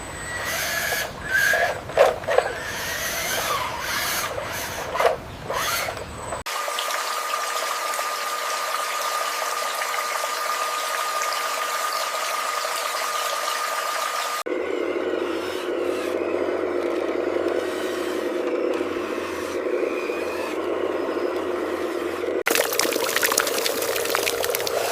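Small electric motors and gearboxes of RC construction trucks whining steadily, with sharp clicks, knocks and scraping in the first few seconds. The sound changes abruptly three times.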